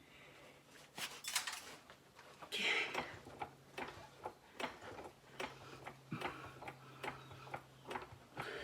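Transmission jack being pumped to raise a GM 4L60E automatic transmission, clicking evenly about twice a second, after a few louder scrapes and knocks at the start. A faint steady low hum runs underneath.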